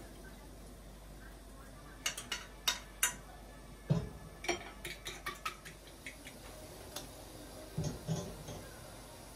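Kitchen clatter: a fork clicking several times against a glass mixing bowl, and a frying pan knocking on the gas hob's grate about 4 s in and twice more near the end.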